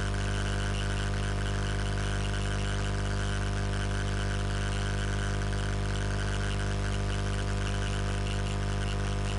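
Steady electrical hum with hiss: a low drone made of many fixed tones that does not change.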